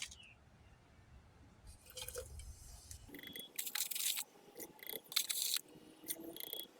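Ferrous sulfate being spooned into the gold chloride solution to precipitate the gold: a few short scrapes and light clinks of a spoon on glassware, with faint liquid sounds.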